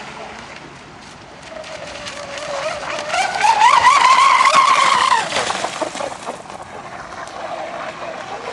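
Lehner brushless electric motor of an RC racing catamaran whining at full speed as the boat runs past close by. The whine climbs in pitch and loudness over about two seconds, is loudest around the middle, then drops in pitch and fades, with a hiss of spray underneath.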